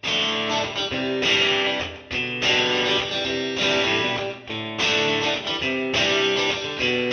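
Background music: strummed guitar chords, electric guitar to the fore, changing about once a second.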